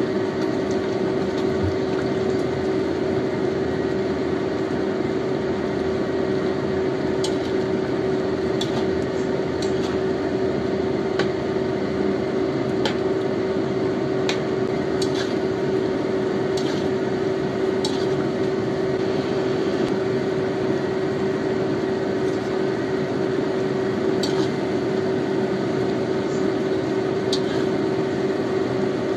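A metal spoon stirs bamboo shoots and coconut milk in a wok, giving wet squelching and scattered light clinks of the spoon against the pan, over a steady hum.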